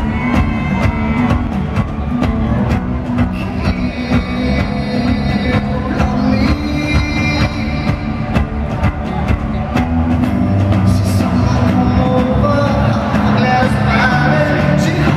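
Rock band playing live in an arena, with guitar over a steady drum beat, recorded from the audience.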